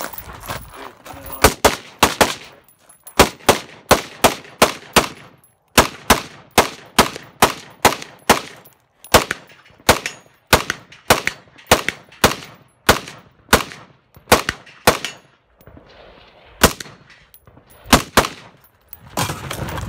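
AR-style semi-automatic rifle fired in a long, rapid string of loud shots, mostly in quick pairs and small groups, with a short pause about three quarters of the way through.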